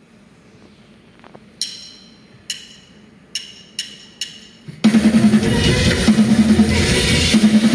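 Live fusion band on stage: five sharp, ringing percussion strikes over a quiet hall, then about five seconds in the full band comes in loud with drum kit.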